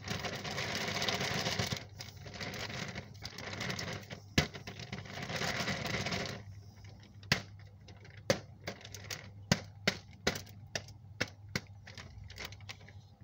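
A clear plastic bag of wet hemp and corn particle bait rustling and crinkling as it is worked by hand, in two long stretches. Over the second half come sharp, irregular clicks and taps, a couple of times a second.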